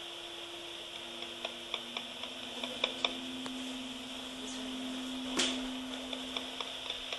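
Sony BabyCall baby monitor receiver hissing through its speaker, with irregular clicks and ticks that sound like Morse code over a low steady hum. A louder click comes about five seconds in. The signal is perhaps another transmitter on a nearby frequency.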